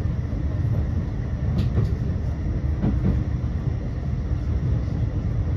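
Tram running along the track between stops: a steady low rumble of motors and wheels on rail, with a few short clicks near the middle.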